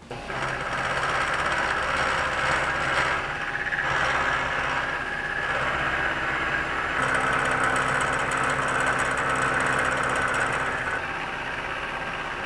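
Vertical milling machine running, its cutter milling the centre groove into a pinch lug clamped in the vise. A steady machine hum throughout, with a brighter, scratchy cutting sound added from about seven seconds to eleven.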